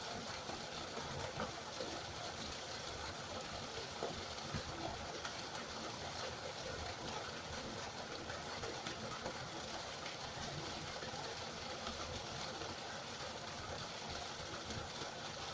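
River water rushing and babbling steadily over stones in a continuous, even wash.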